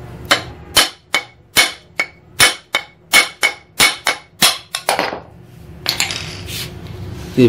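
Hammer blows on a steel drift punch set against the crankshaft end in a donkey pump's pulley wheel: about a dozen sharp metallic knocks, roughly three a second, driving the crank set out so the wheel comes free. A brief scrape follows about six seconds in.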